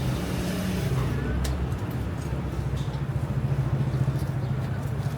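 Street traffic: a motor vehicle engine running close by with a steady low hum, over background voices and street noise.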